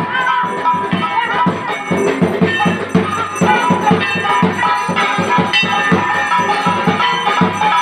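Devotional arti music with a steady beat and jingling, rattling percussion over a melodic line.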